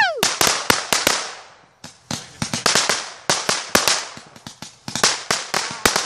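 Consumer fireworks going off: a whistling firework's whistle drops away at the start, then a fast, irregular run of sharp firecracker cracks and pops, several a second, with a short lull about two seconds in.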